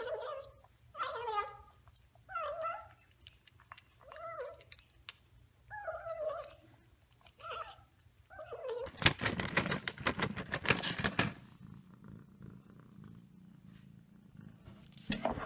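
Kitten giving short, wavering mews over and over while it eats, about seven calls, one every second or so. After about nine seconds the calls stop and a loud rustling, clattering noise takes over.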